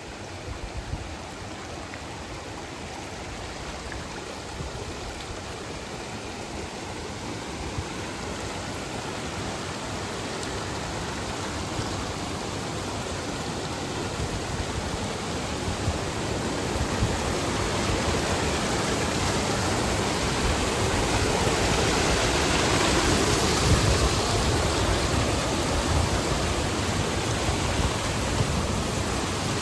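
Steady rush of flowing water from a mountain stream or waterfall, growing gradually louder and peaking about two-thirds of the way through.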